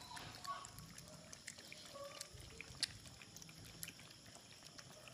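Several puppies lapping milk with soaked biscuits from a shallow plastic basin: an irregular patter of small wet clicks and slurps.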